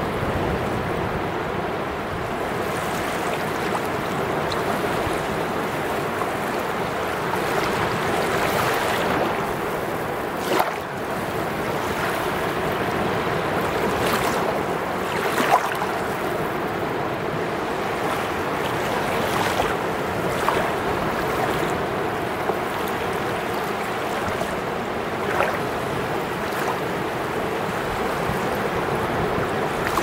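Small Black Sea waves breaking and their foamy wash running up over the sand in a steady rush of surf. A few short, sharp clicks cut through it now and then.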